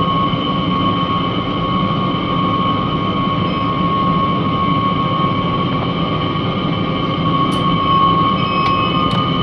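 Steady machinery drone: a low rumble with a held high whine over it, unchanging throughout, and a few faint ticks near the end.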